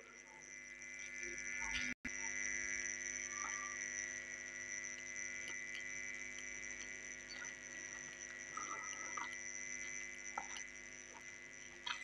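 A steady droning hum made of several held tones, one of them a high whine, with a few faint clicks.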